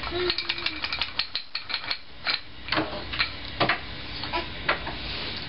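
Toy blocks clattering and knocking together as they are handled and dropped: a quick run of clicks in the first two seconds, then a few separate knocks.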